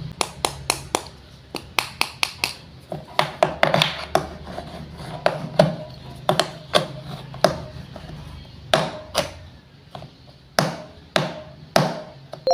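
Wooden toy fruits and vegetables being cut with a toy knife on a cutting board: a long run of sharp wooden taps and clacks at an uneven pace, about two a second, some coming in quick pairs.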